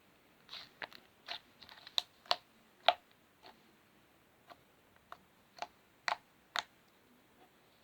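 Slime being squeezed and poked by hand, giving off irregular sharp clicking pops as trapped air bursts, about a dozen spread unevenly with a quick cluster near two seconds in.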